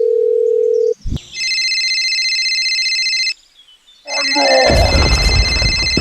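Telephone dial tone, a steady single tone that cuts off after about a second, then a click and an electronic telephone ring in two bursts with a short gap between. A loud voice and a low rumble come in over the second ring.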